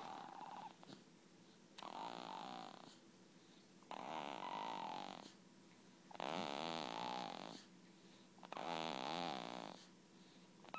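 Regular snoring, one long snore about every two and a half seconds, with quieter pauses between.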